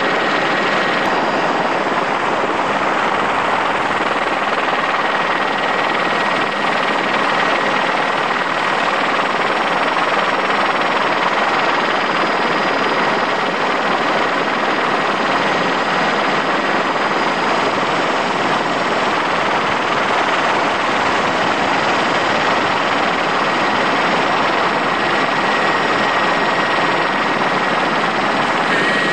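Helicopter's engine and rotor noise heard from aboard, a steady, unbroken noise with a faint thin whine held on one pitch.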